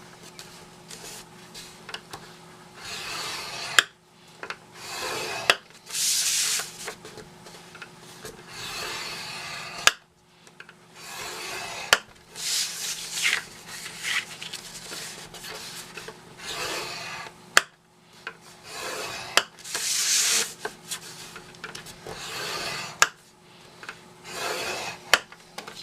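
Cardstock being scored on a scoreboard: a scoring tool drawn along the board's grooves in a series of separate scraping strokes, with a few sharp clicks between them.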